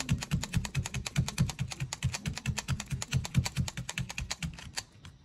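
Felting needle in a pen-style holder stabbing rapidly into wool over a cloth-covered foam pad, about eight pokes a second, each a low thud with a light click. The stabbing stops shortly before the end.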